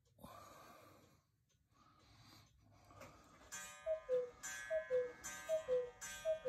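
A chiming two-note figure, a higher note dropping to a lower one, sounded four times in about three seconds from just past halfway. Before it come a few soft rustling noises.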